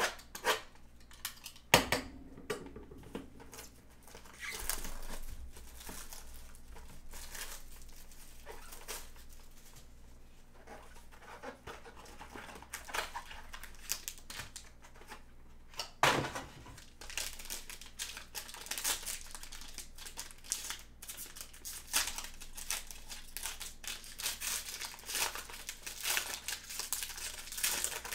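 Foil trading-card pack wrapper crinkling and tearing under gloved hands, with clicks and a couple of sharp knocks from handling the cardboard box; the crinkling gets busier in the second half.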